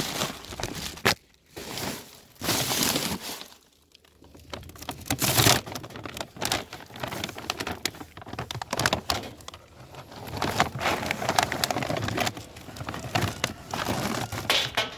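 Dry dog food being scooped and poured, the kibble rattling in several bursts with short pauses.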